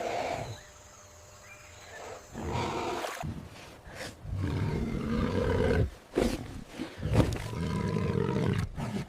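A large animal calling several times in long, low calls, after a short quiet spell near the start.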